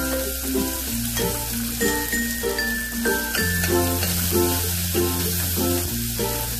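Chopped onions sizzling in hot oil in a stainless steel pot as a spatula stirs them, under background music with a repeating melody over a slow-changing bass line.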